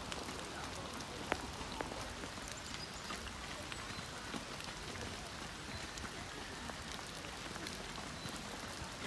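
Light rain falling: a steady hiss with scattered drops ticking.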